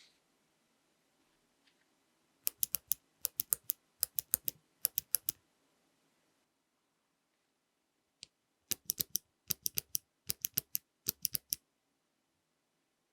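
Bare clicky mechanical keyboard switches pressed slowly to the bottom and released, each press and release giving sharp clicks. Two runs of four presses, separated by a pause of about three seconds.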